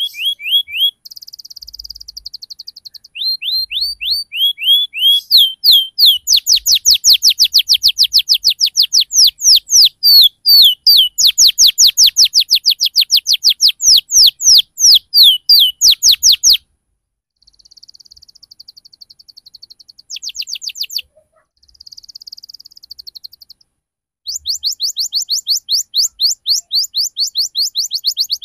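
Domestic canary singing its rolling song: long fast trills of repeated down-slurred whistled notes. About halfway it breaks off, and a few quieter buzzy phrases come before the trill starts again near the end.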